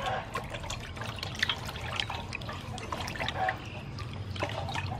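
Hands washing raw squid in a large metal basin of water: irregular small splashes, drips and trickles as the squid are swished and lifted out.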